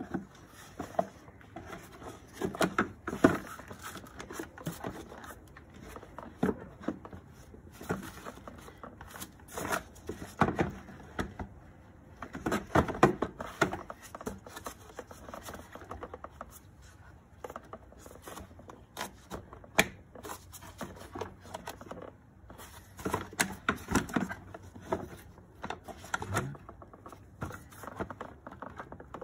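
Plastic air box housing being handled and fitted into a car's engine bay: scattered knocks, clicks and scrapes of hard plastic against plastic and metal, with gloved hands rubbing over the parts.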